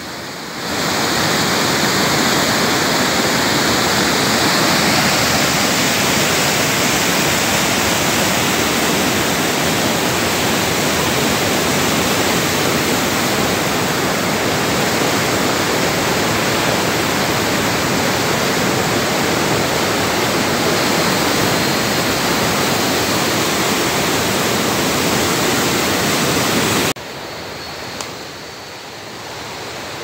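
Waterfall rushing down sloping rock slabs: a loud, steady sound of cascading water. It cuts off suddenly near the end, leaving a much quieter background.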